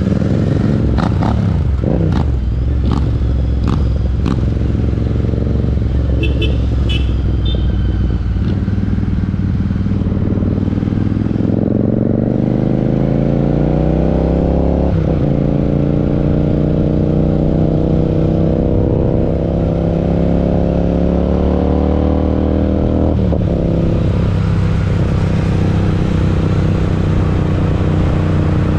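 Parallel-twin motorcycle engine running under way, with a few sharp clicks in the first few seconds. It then pulls up through the revs twice, the pitch dropping at a gear change about halfway through and again about three-quarters of the way in.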